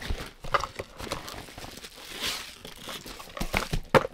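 Packaging rustling and crinkling as boxed makeup products are taken out of a bag and set down on a table, with scattered knocks of boxes against the tabletop, the loudest near the end.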